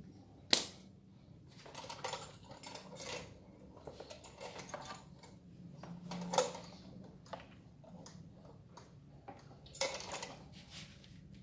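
Metal clinks and clatter as the brush cutter's drive-shaft hose with its metal end fitting is handled against the engine's aluminium clutch housing, with a sharp clink about half a second in and more near the middle and near the end.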